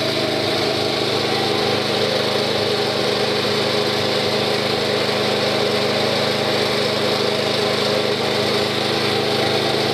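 A small motor running steadily at constant speed: an even hum made of several held tones, with no change in pitch or loudness.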